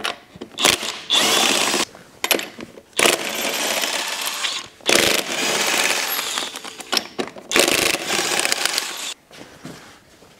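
Cordless impact wrench spinning lug nuts off a wheel, in about five bursts of one to two seconds each with short pauses between them.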